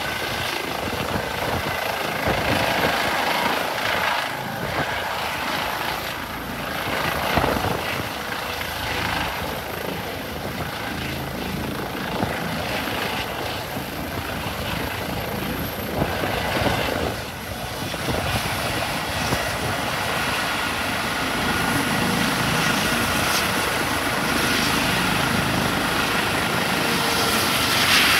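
Airbus EC135 helicopter's rotor and turbines running as it hovers, sets down on the pad and keeps running on the ground. In the first part it is an uneven, gusty rush; from about two-thirds of the way in it settles into a steadier sound with a thin whine.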